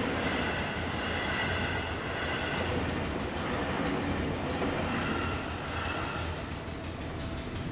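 Seibu 10000 series 'New Red Arrow' seven-car electric limited express running past over a level crossing: steady rolling train noise with higher-pitched tones coming and going, easing slightly past the middle.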